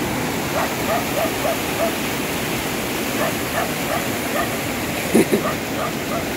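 Fast-flowing rocky river rushing steadily over rapids, with a run of short, high calls repeating a few times a second over the rush and a brief knock about five seconds in.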